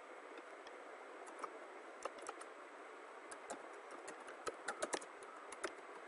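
Faint computer keyboard keystrokes, a few scattered clicks and then a quicker run of keys about four to five seconds in, over a steady low hiss.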